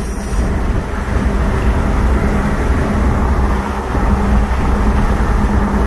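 Steady low rumble of engine and road noise inside the cab of a moving Chevrolet truck, with a constant low hum under it.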